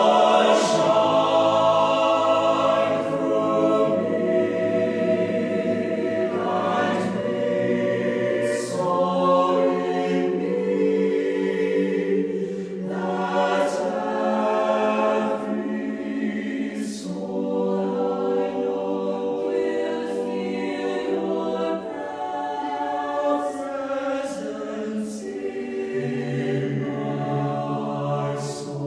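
Choir singing long sustained chords, several voice parts layered.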